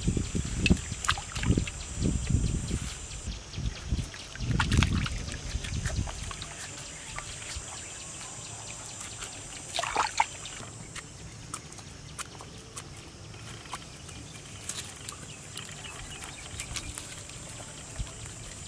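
Water sloshing and splashing in a steel basin as live snakes are lifted and rubbed in it, loudest in the first six seconds. After that, quieter handling, with scattered clicks and a short splash about ten seconds in.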